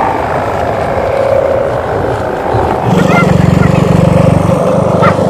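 Sendaren kite hummers on flying bapangan kites, buzzing in a steady drone with a fast flutter. A louder, lower drone comes in about three seconds in.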